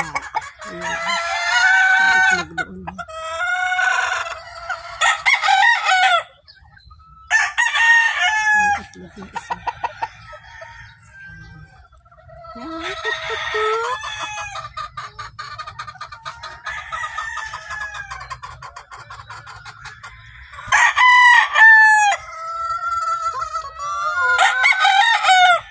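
Roosters crowing again and again, one crow often overlapping another, with hens clucking between the crows. The loudest crows come close together about three-quarters of the way through.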